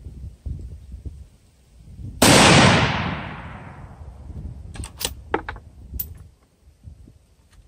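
A single shot from a .243 Winchester Savage bolt-action rifle firing a handloaded 70-grain Sierra MatchKing over Varget, about two seconds in, with its report rolling away over about a second and a half. A few sharp clicks follow a couple of seconds later.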